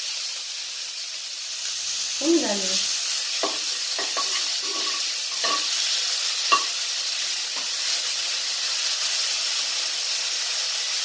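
Chopped onion sizzling steadily in hot oil and ghee in a metal kadhai, with a spoon stirring it and clinking against the pan several times.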